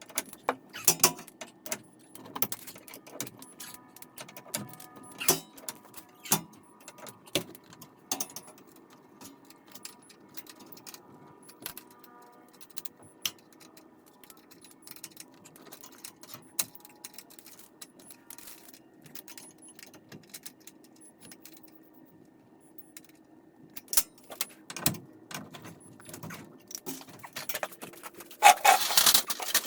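Irregular metallic clinks and knocks of tools and garage door spring hardware being handled, with a denser, louder clatter near the end.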